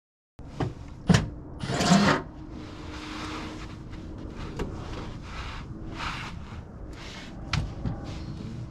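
Handling noise from working on a truck's fender liner: a couple of sharp knocks, then a louder scraping rush about two seconds in, followed by intermittent clicks and rustles over a low steady hum.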